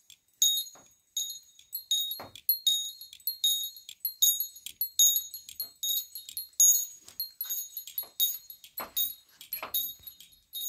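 Metallic jingling, like small bells being shaken, in quick, uneven bursts several times a second, with a few duller knocks.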